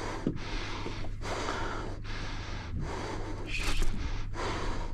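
A person breathing hard in quick, repeated gasps from the exertion of fighting a fish on rod and reel, over a steady low rumble.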